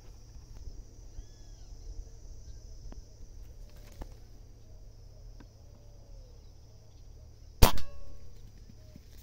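A single shot from a Beeman air rifle firing a slug: one sharp crack about seven and a half seconds in, with a brief ringing tail. Before it, faint bird calls over a low steady rumble.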